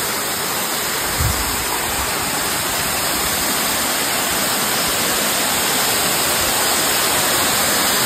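Steady rushing of a waterfall, an even noise with no pauses, with a brief low thump about a second in.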